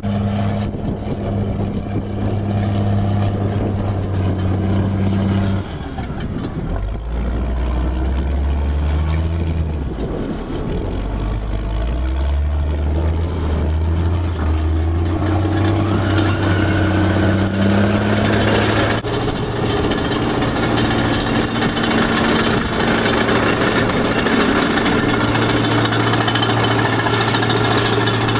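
Caterpillar D8R bulldozer's diesel engine running hard at close range, its pitch dropping about six seconds in and stepping back up over the next several seconds, with a dense clatter from the moving machine.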